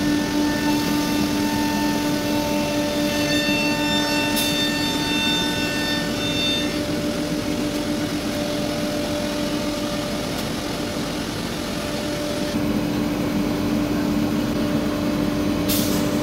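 Workshop machinery running steadily with a humming, whining tone, some of its higher tones dropping out about halfway through. There are a couple of short clicks, one of them near the end.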